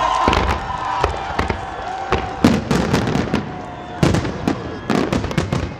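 Aerial fireworks: a rapid, irregular run of sharp bangs and crackles as rockets and shells burst overhead, with the loudest reports about halfway through and again about a second later.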